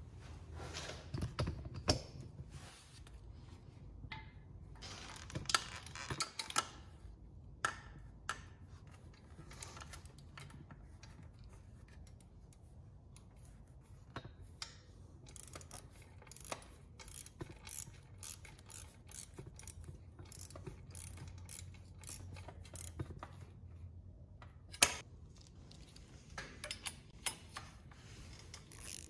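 Socket ratchet clicking in short runs as engine-guard bolts are tightened with a 12 mm socket, with scattered clicks and knocks of the tool on metal and one sharp, loudest knock late on.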